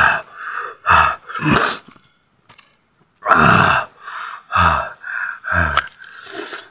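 A man's short, breathy groans and grunts, one after another, some falling in pitch, as he bites into green mango mixed with chili: reactions to the burn of the chili.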